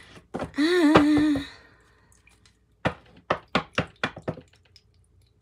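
A woman's drawn-out voice for about a second, then a quick run of about seven sharp taps and clicks as a tarot deck is handled against the wooden table.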